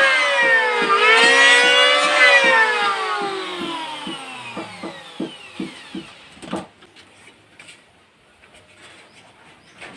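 Electric woodworking power tool motor whining at speed, dipping briefly in pitch about a second in, then winding down with a falling whine after being switched off, with faint regular ticking as it slows. A single knock comes about six and a half seconds in, followed by a few faint clicks.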